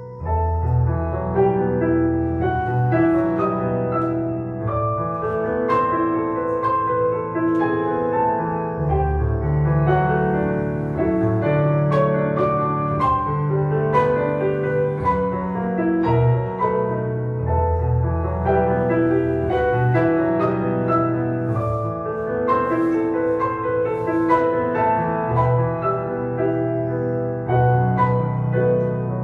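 Solo piano music accompanying a classical ballet exercise: a flowing piece of struck chords over bass notes.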